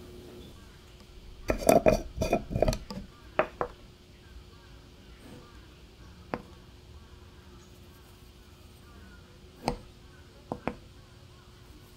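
Metal measuring spoon clinking against a glass sugar jar and its metal lid: a quick run of clinks and knocks about two seconds in, then single clinks spaced a few seconds apart as sugar is scooped out.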